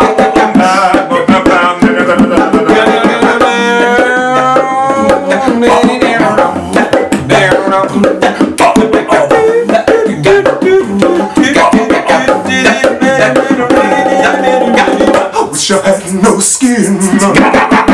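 Bongo drums played by hand in a quick, steady rhythm under several men's voices singing together.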